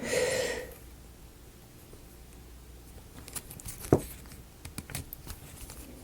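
Light clicks and taps of thin wooden model-kit pieces being handled and fitted together, with one sharper knock about four seconds in.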